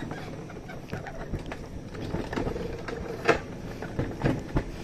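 Mountain coaster sled rolling along its steel rail: a continuous rumble from the wheels on the track, broken by scattered clicks and knocks, the sharpest a little past three seconds in.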